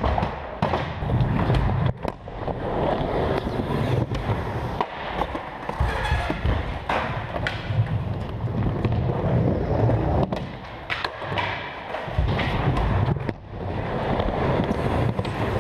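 Skateboard wheels rolling over a skatepark floor and ramps in a steady rumble, broken every few seconds by sharp clacks of a board's tail and wheels hitting the surface.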